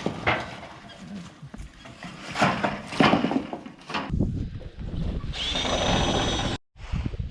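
A series of wooden knocks and clatter as the coop's porch boards are handled, then a power drill runs for about a second and cuts off suddenly.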